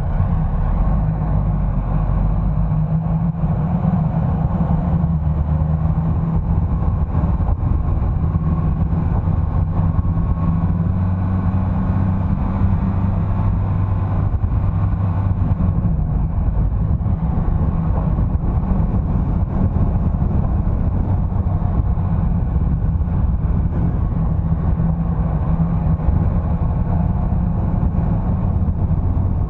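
A motor vehicle driving along a road: a steady low engine drone mixed with road noise, unchanging throughout.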